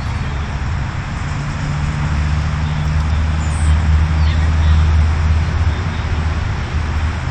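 Low traffic rumble: a road vehicle passing, swelling about two seconds in and fading near the end, over a steady hiss.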